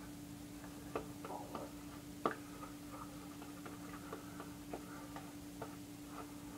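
Gold Dollar stainless 6/8 straight razor scraping through lathered stubble: faint, irregular crackling ticks as the blade cuts the whiskers, with a steady low hum underneath.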